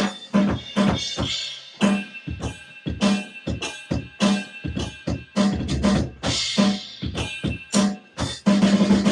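EFNOTE electronic drum kit being played in a steady groove of kick, snare and cymbal hits, about two strokes a second. The hits grow louder and denser near the end.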